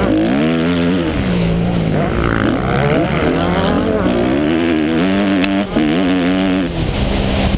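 Honda 250cc motocross bike engine heard on board, revving hard under racing load, its pitch climbing and dropping again and again as the rider works the throttle and shifts.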